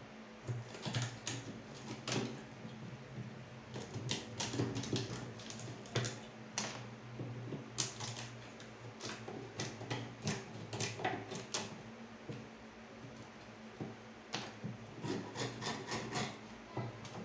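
Hand chisel pared into plywood, cutting out a marked notch: irregular scraping cuts and sharp clicks as wood chips break away.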